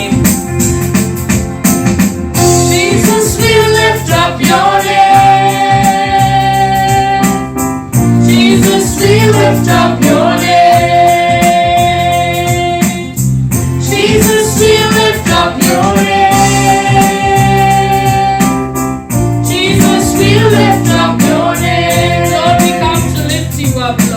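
Christian worship song: singing over keyboard accompaniment, in phrases with long held notes that repeat about every six seconds.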